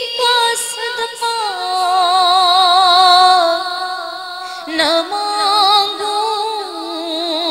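A woman's voice singing a slow devotional Urdu dua in long held notes with a wavering vibrato. The note steps down about a second and a half in, and a new phrase begins about five seconds in.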